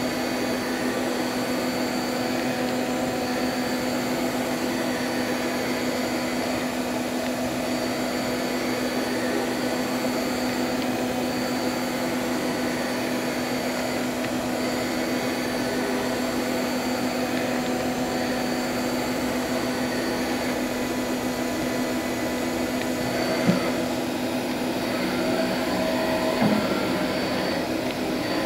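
Daewoo DMV-500 CNC vertical machining center running under power: a steady hum with a constant low tone and a high whine that comes and goes every second or so. A couple of brief knocks near the end.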